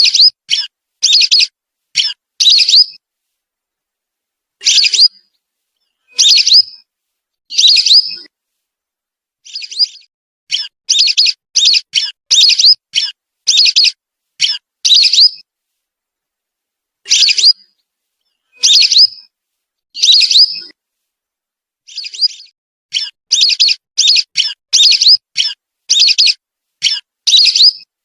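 Whistling duck (belibis) calls: runs of short, high whistled notes, several a second, broken by pauses of a second or two.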